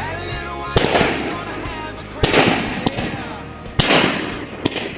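Fireworks going off: three big bursts about a second and a half apart, each trailing off in crackle, and a sharper single pop near the end, over background music.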